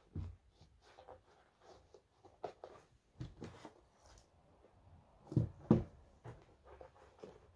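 Sneakers being handled on a table while a plastic toe-box crease guard is pushed inside: scattered soft rustles and light knocks, with two louder thumps a little past halfway as a shoe is set down.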